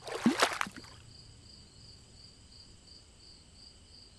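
Channel intro sound effect: a sudden loud noisy burst in the first second, then a faint, steady, high chirping drone that pulses about three times a second.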